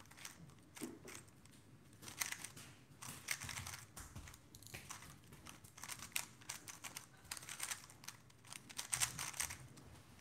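Stickerless 3x3 speedcube, a ShengShou Mr. M, being turned fast during a timed solve: a quiet, near-continuous plastic clicking and clacking in quick irregular flurries.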